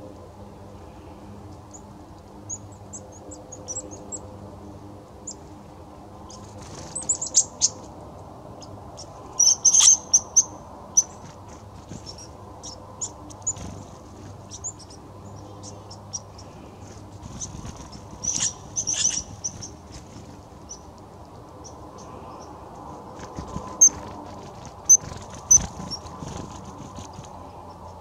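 Black-capped chickadees calling: scattered short, high-pitched notes in clusters, loudest about ten seconds in and again near nineteen seconds, with a few sharp single notes later on.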